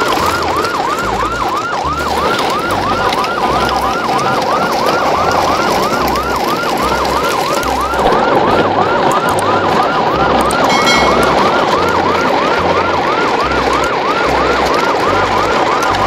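Electronic siren in a fast yelp, sweeping up and down about three to four times a second without a break, over a pattern of low thumps. A short high beep sounds about eleven seconds in.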